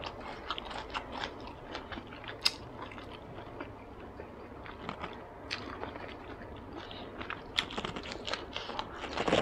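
Chewing and biting into a fresh Vietnamese spring roll (gỏi cuốn): irregular small wet clicks and light crunches from the rice paper and fresh vegetables, with a louder crunch near the end.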